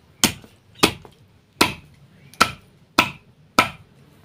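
Large curved knife chopping a chicken into pieces on a wooden block: six sharp chops, about one every two-thirds of a second.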